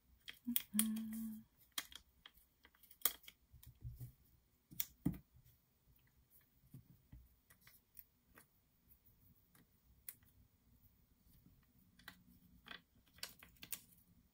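Faint handling of paper craft pieces and a clear sheet of adhesive glue dots on a wooden table: scattered small clicks, taps and light rustles as dots are peeled off and pressed onto a die-cut.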